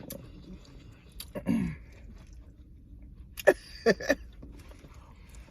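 Close-up eating sounds: a short hummed 'mm' about one and a half seconds in, then three sharp mouth smacks about two seconds later.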